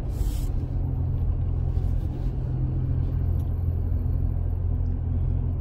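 Steady low rumble of a car's engine and road noise heard from inside the cabin while driving in slow traffic. A brief rustle right at the start.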